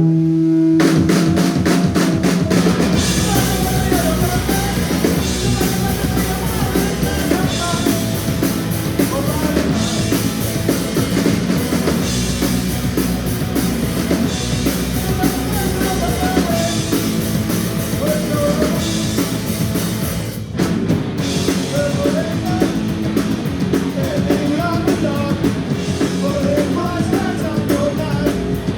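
Live street band playing an up-tempo piece, with horns carrying the melody over a steady drum kit beat. It starts from a held note about a second in and has a very brief break about two-thirds of the way through.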